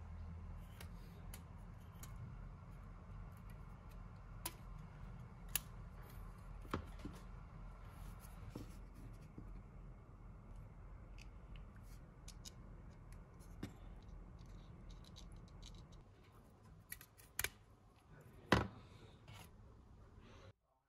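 Faint scattered clicks and ticks from small hand work, over a low steady hum that stops about three-quarters of the way through, with two louder clicks near the end.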